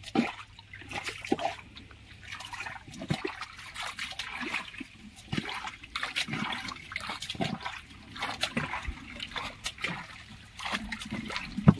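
Water splashing and trickling off a cast net as it is hauled up out of the river into a wooden boat, with irregular knocks against the hull and one sharp knock near the end.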